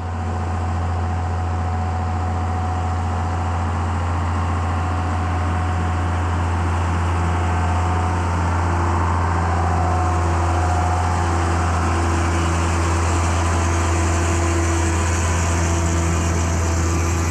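John Deere 7510 tractor's six-cylinder diesel engine running steadily with a constant low drone, getting a little louder over the first couple of seconds.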